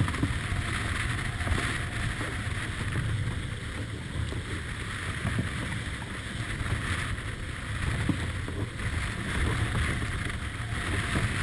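Wind buffeting the microphone over the steady rush of water and spray along a Beneteau 40.7 sailing yacht's hull as it sails heeled over through rough seas.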